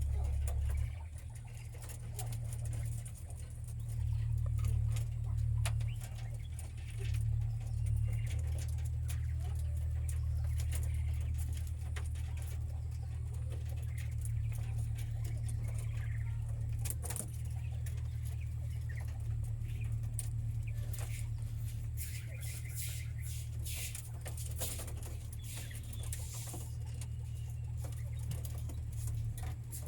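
Caged quail pecking and scratching, with scattered sharp clicks and a few soft calls, over a steady low hum.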